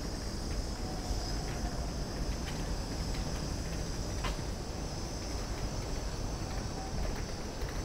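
Street ambience while walking: a steady high-pitched insect drone over a low rumble of wind on the microphone, with a few faint clicks.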